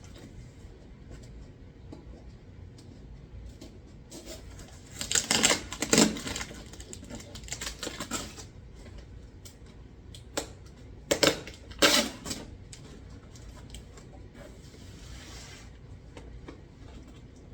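Packaging being handled during an unboxing: scattered crackles and sharp clicks of packing material and cardboard. A dense run of rustling comes about a quarter of the way in, and a few sharp knocks follow past the middle.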